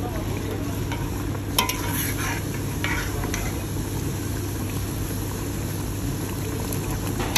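Chicken curry bubbling in a steel pot as a metal ladle stirs through it and lifts the pieces, with a few light clinks of the ladle against the pot, the sharpest about a second and a half in.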